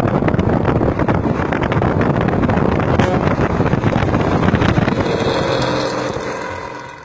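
Bus diesel engine running through a loud aftermarket racing exhaust: a noisy, rough, snoring exhaust note (knalpot ngorok). It fades away over the last couple of seconds.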